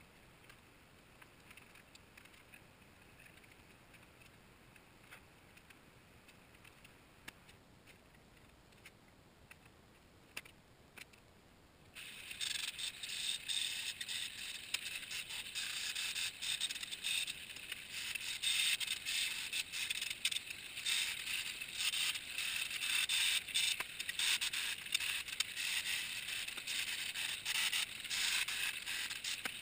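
Quiet shop with a few light clicks, then about twelve seconds in an electric welding arc strikes on stainless steel frame stock: a steady, uneven crackling hiss that keeps going.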